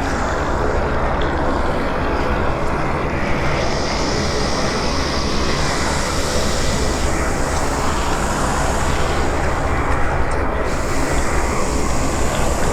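Horror sound effect of a demonic, hellish atmosphere: a loud, steady, deep rumbling drone with a hissing layer that swells and fades over it.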